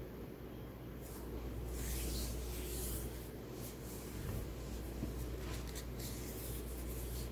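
Steady low hum of background room noise, with scattered rustling and rubbing sounds starting about a second in.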